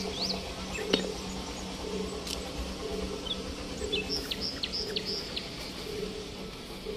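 Small birds chirping, with short high calls and quick downward notes scattered through and clustered in a run about two-thirds of the way in, over a steady low drone.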